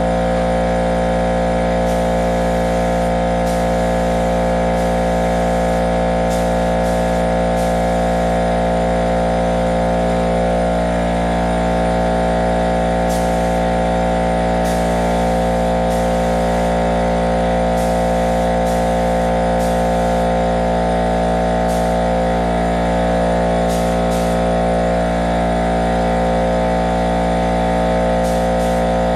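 Steady electric motor hum from a running box fan, holding several fixed tones with no change in level or pitch.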